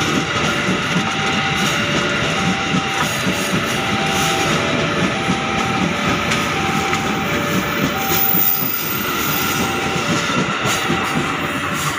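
Ex-JR 205 series electric commuter train passing at close range, its wheels rumbling and clattering on the rails in a steady, loud wash of noise. Over it a two-tone electronic chime alternates high and low about once a second.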